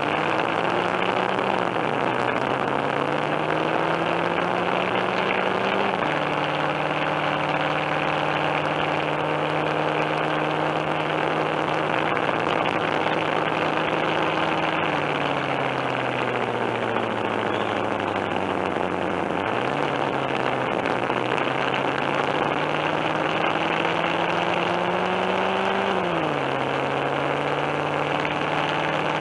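Coin-operated bulldozer kiddie ride playing its engine sound effect through its speaker: a steady, engine-like hum whose pitch climbs slowly, holds, sinks and jumps back up several times, as if the machine were revving and easing off.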